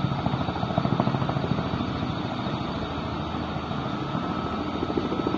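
A helicopter running nearby: a fast, steady rotor beat over engine noise.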